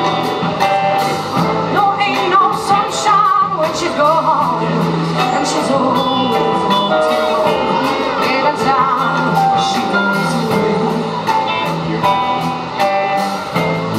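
Live pop-rock band: a singer over electric guitar, bass and drum kit, with a steady beat.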